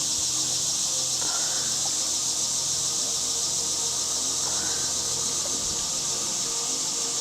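Steady, high-pitched chorus of insects buzzing.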